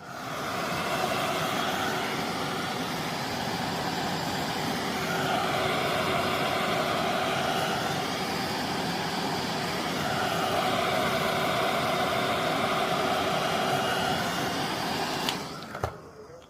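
A small electric blower motor running steadily for about fifteen seconds, its rushing air sound slowly swelling and shifting in tone every few seconds, then switched off near the end.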